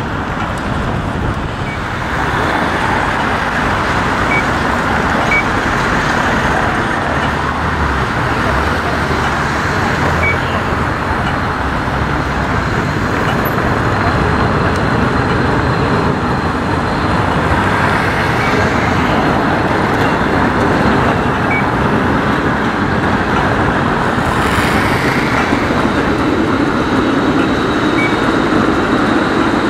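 Steady city street traffic noise from cars and trams on a cobbled junction. Near the end an articulated tram rolls by close, its rumble rising, with a faint steady whine.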